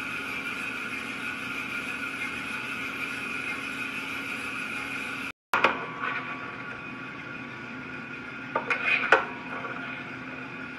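Small batch drum coffee roaster running with a steady mechanical hum. After a brief dropout just over halfway, the hum carries on a little quieter, with a few sharp metal clacks near the end as the sample trier is worked in and out of the drum.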